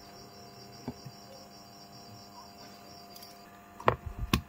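Faint steady hum with a faint, evenly pulsing high tone. Near the end come two sharp knocks as the smartphone is picked up and handled.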